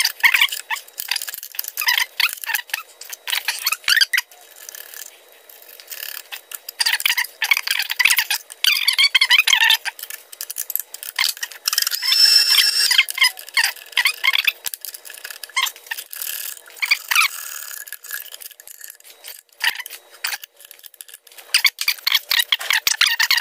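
Metal parts and hand tools clinking, scraping and clattering as a fixture is clamped onto a milling machine table, with squeaks throughout and a short high squeal about halfway through.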